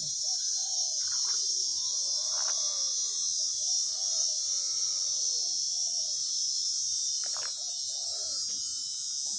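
Steady high-pitched buzzing of insects, with faint scattered sounds underneath.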